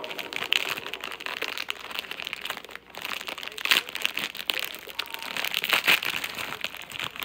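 Plastic snack packaging crinkling as it is handled: a dense, irregular run of crinkles and crackles, with louder crinkles about half a second in, near four seconds and near six seconds.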